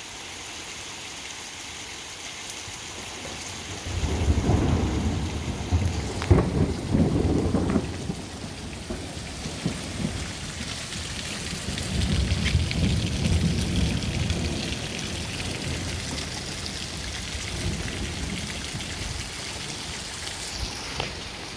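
Thunder rumbling over steady rain: a deep rumble breaks in suddenly about four seconds in, peaks over the next few seconds, swells again near the middle and slowly fades, with the rain hissing throughout. It is thunder following a lightning flash after a delay.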